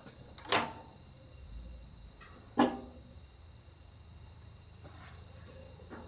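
Steady high chirring of crickets, with two short sharp clicks from a microwave oven's door being handled: one about half a second in as the door is opened, another about two and a half seconds in.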